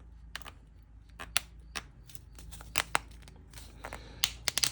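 Sharp, irregular clicks and taps from handling an old fuel tank sending unit on a workbench, about a dozen in all, with a cluster near the end.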